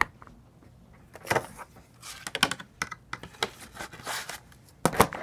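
Handling noise of a camera being picked up, moved and set down: a sharp click at the start, then scattered clicks, knocks and rubbing, with a loud knock near the end.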